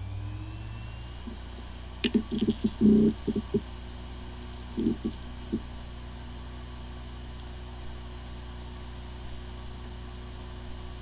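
Hard drive running with a steady whir, broken by a cluster of clicks and knocks about two to three and a half seconds in and a few more about five seconds in. It is the sound of a drive whose disks spin nicely but that cannot be accessed, a symptom that points to disk firmware corruption.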